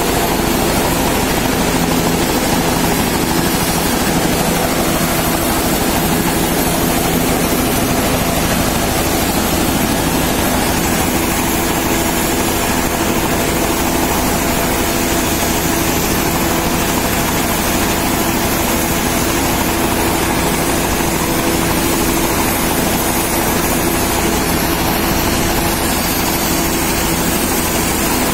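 Bell 206 helicopter running steadily: its turboshaft engine and two-bladed rotor, with a thin high-pitched turbine whine over a low engine drone, holding the same level throughout.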